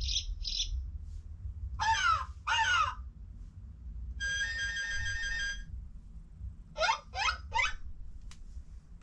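A LeapFrog 100 Animals Book's speaker playing short animal sound effects over a low steady hum: two sweeping calls about two seconds in, a held electronic tone in the middle, and three quick calls near the end.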